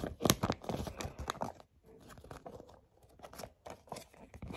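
Foil Lego minifigure polybag crinkling and rustling as it is handled, in irregular runs of small crackles and clicks with brief pauses.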